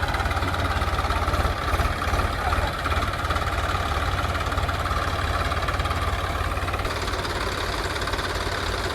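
Diesel engine of a JCB 3DX backhoe loader running steadily with an even knocking beat. A faint thin tone over it stops about seven seconds in.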